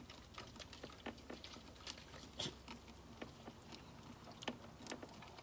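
Faint, irregular light clicks and taps of a quarter-inch drive socket and extension being turned by hand, threading a mounting screw into a car's vacuum pump. A few clicks stand out louder, about two and a half seconds in.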